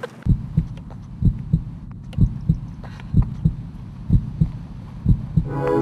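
A heartbeat: low double thumps about once a second. Music comes in near the end.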